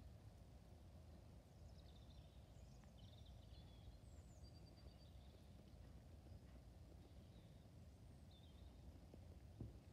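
Quiet outdoor ambience: birds chirping on and off over a low steady rumble, with one short click near the end.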